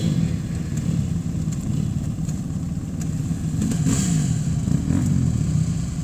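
Dirt-bike engines idling, with a brief rev about four seconds in and another about five seconds in.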